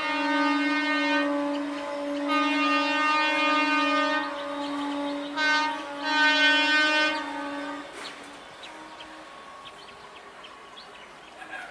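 Electric multiple unit (EMU) local train's horn sounding one long blast at a steady pitch, swelling louder in several surges before cutting off about eight seconds in. Faint bird chirps follow.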